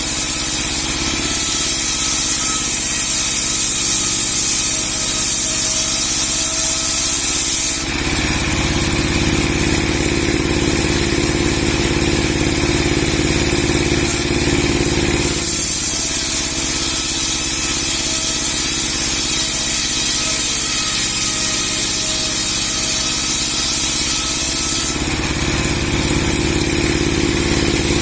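Large 30 hp sawmill machine with a 60 cm steel saw blade running continuously. Its sound changes abruptly about eight seconds in, again around fifteen seconds in, and near the end, alternating between a thinner, higher running sound and a heavier, deeper one.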